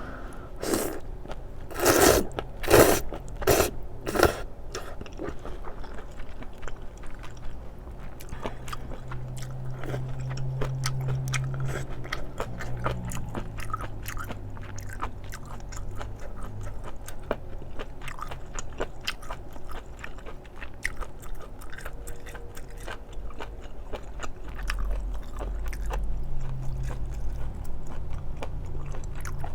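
Close-miked mukbang eating sounds: chewing and biting spicy stir-fried octopus with thin wheat noodles, with wet mouth clicks all through. A few loud, sharp bites or slurps come between about two and four seconds in.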